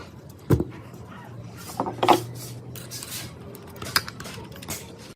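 Metal parts clinking and knocking as they are handled, with sharp knocks about half a second in, around two seconds in, and at four seconds, over a faint steady low hum.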